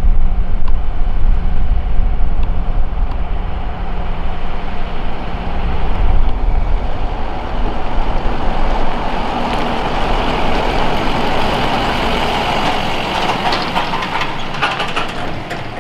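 Ford Super Duty stake-bed work truck driving up and past close by. It starts as a low engine rumble, and tyre and road noise builds in the second half as it comes alongside.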